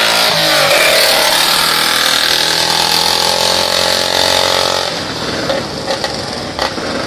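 Classic motorcycle engine running hard as the bike passes close by, its pitch falling as it goes past, then running on steadily as it climbs away. The sound drops off about five seconds in.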